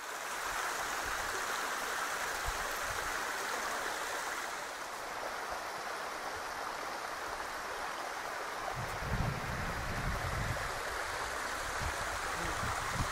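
Steady rush of a waterfall on the Clarence River below the gorge lookout. Low, uneven rumbles join from about nine seconds in.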